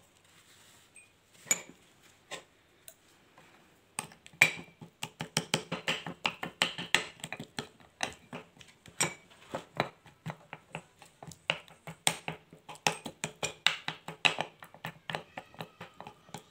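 Metal spoon clinking and scraping against a small ceramic bowl as a paste is stirred. A few scattered clicks at first, then rapid, steady clinking from about four seconds in.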